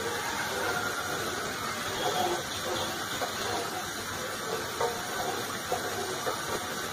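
A spatula stirring thick, simmering milk in a metal pot: sloshing and occasional light scrapes against the pot, over a steady hiss.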